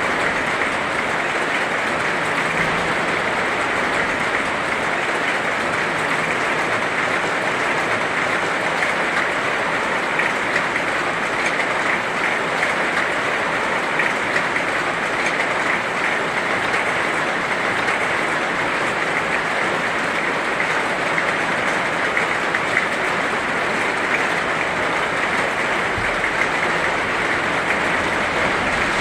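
Heavy rain falling steadily: a dense, even hiss of countless drops that holds unchanged throughout.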